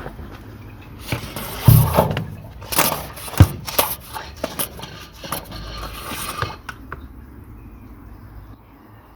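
Hard objects scraping and knocking, a quick run of scrapes and sharp knocks that dies away near the end.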